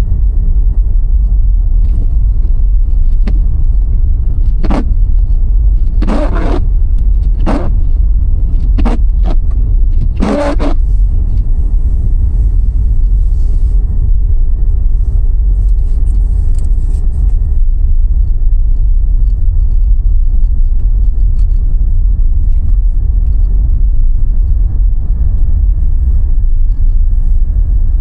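Steady low rumble of a car's engine and tyres while driving, heard from inside the cabin. About six short, sharp sounds come between about five and eleven seconds in.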